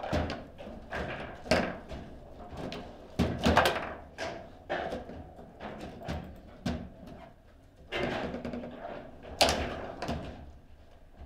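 Table football in play: plastic players striking the ball and rods knocking in the table, a series of irregular sharp knocks with the loudest clusters a little after a second and a half, around three and a half seconds and near nine and a half seconds.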